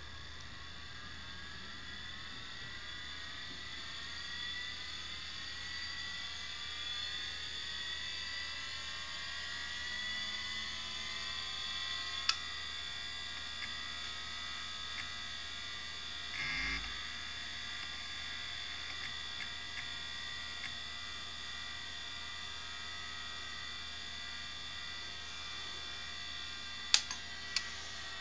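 Old Seagate hard drive spinning up. Its whine rises in pitch for about twelve seconds, then holds steady once the platters reach full speed. A few sharp clicks come about twelve seconds in and again near the end.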